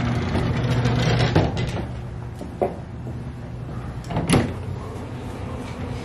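Automatic sliding doors at a store entrance opening: a steady low hum, strongest in the first second or so, with a few sharp knocks and clicks.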